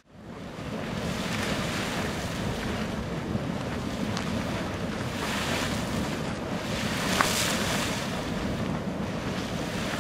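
Geyser erupting: a steady rush of splashing water and venting steam, fading in over the first second, with wind buffeting the microphone.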